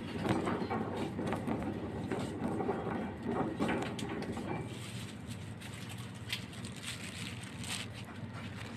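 Wire shopping cart rattling and clicking as it is pushed along the store floor, over a steady low hum.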